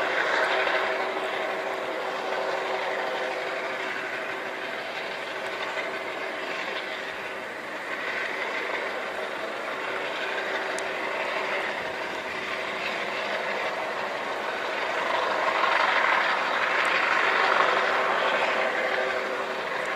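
Helicopter, a Coast Guard HH-65 Dolphin, running over the water: a steady whine over a broad rushing noise, growing louder about three-quarters of the way through.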